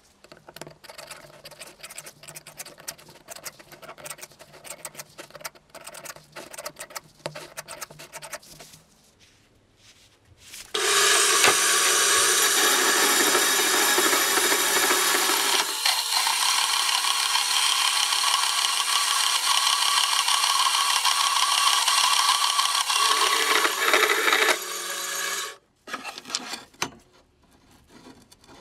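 Workshop tool sounds: scraping and light clicking and tapping for about nine seconds, then a loud steady machine noise for about fifteen seconds that stops abruptly.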